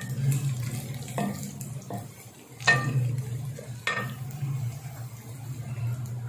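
Sliced onions frying in oil in a steel kadai, stirred with a wooden spatula that knocks against the pan four times, the loudest knock a little before the middle. A steady low hum runs underneath.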